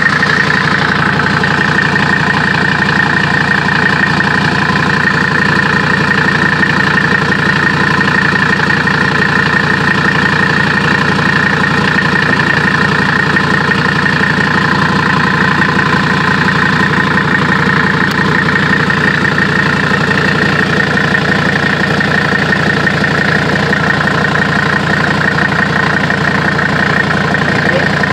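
Mercedes-Benz OM617 five-cylinder turbodiesel idling steadily, running after its engine oil cooler lines were replaced.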